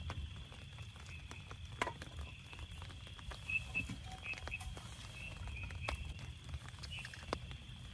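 Rain pattering on a tent as scattered ticks over a low rumble, with a steady high insect drone and a few short chirps from frogs.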